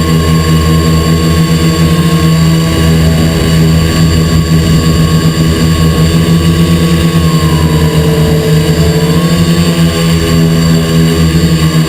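The electric motors and propellers of an XP2 quadcopter droning steadily, heard up close from the camera it carries. A higher whine rides on top and wavers slightly in pitch as the craft adjusts its throttle.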